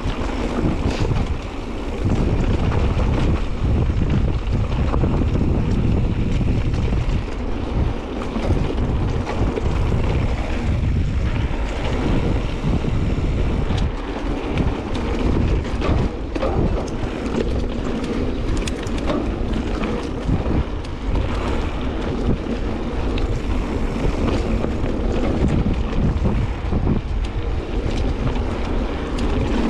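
Mountain bike rolling along a dirt trail: steady tyre rumble with frequent small knocks and rattles from the bike, under heavy wind buffeting on the microphone.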